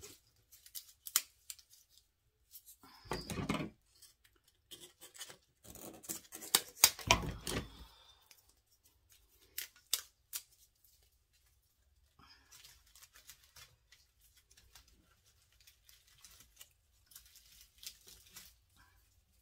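Snipping and crackling rustles of artificial berry sprigs being cut apart and handled, with louder bursts of handling around three and seven seconds in and softer rustling later.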